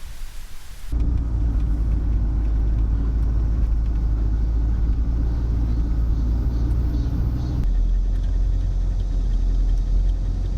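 Low, steady road rumble of a car driving, as heard from inside. It starts abruptly about a second in, changes tone about two-thirds of the way through, and cuts off at the end.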